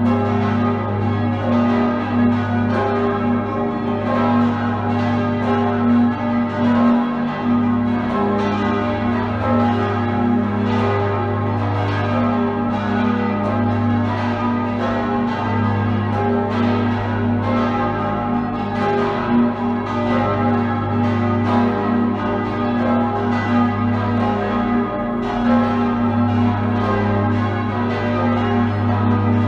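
Full peal of six swinging bronze church bells tuned G#, B, D#, F#, G# and E, the oldest cast by Jakob Mathis Rageth in 1781. Strikes overlap densely and continuously over the steady deep hum of the largest bell.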